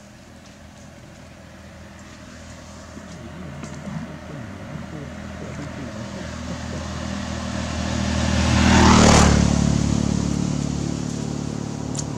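A motor vehicle passing close by: its engine hum grows louder over several seconds, is loudest about nine seconds in, then fades.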